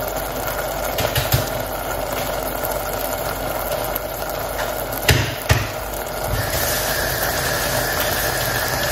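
Steady hiss and hum of a pot of onions and tomatoes cooking on a gas hob, with two sharp knocks about five seconds in. A faint steady high tone joins at about six and a half seconds.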